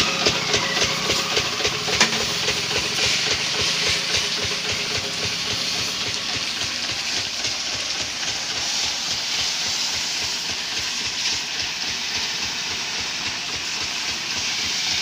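A pressure washer's high-pressure water jet hitting a tractor's bodywork: a loud, steady hiss. For the first few seconds a faint rhythmic pulsing runs under it, then fades.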